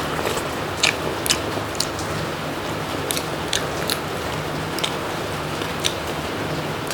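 A person chewing a mouthful of food close to the microphone, with short sharp wet mouth clicks every half second to a second over a low steady hum.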